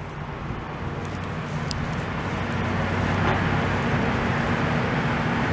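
Wheel loader's diesel engine running steadily at idle, a low even hum that grows gradually louder.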